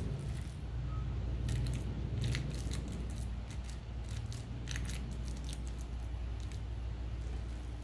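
Hands scooping raw ground-beef mixture from a stainless steel bowl and packing it into a foil-lined loaf pan: wet squishing with quick sharp clicks and crackles, thickest in the middle seconds.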